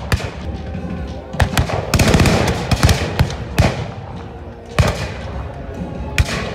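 Black-powder muskets firing a ragged, uneven string of sharp shots, several in quick succession between about one and a half and three and a half seconds in, and another loud report nearly five seconds in.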